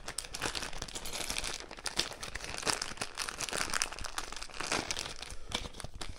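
Continuous crinkling and rustling with many small clicks, from packaging or bag material being handled while the small grommet hardware is fetched out.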